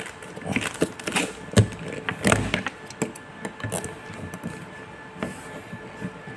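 Irregular small clicks, knocks and scraping of plastic as a knife works at a plastic cable tie on a phone tripod clamp, to cut it off.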